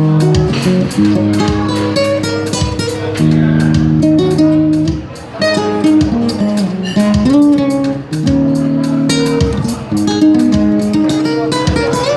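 Instrumental break of a song: guitar playing chords over a band with a steady beat, the chords changing every second or two.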